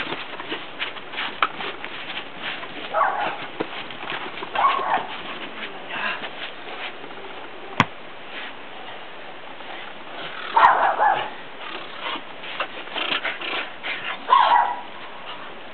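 Four-month-old Belgian Malinois puppy barking in short bursts, about four times, while it tugs on a bite rag. Scuffling and small knocks from the struggle, with one sharp click about halfway through.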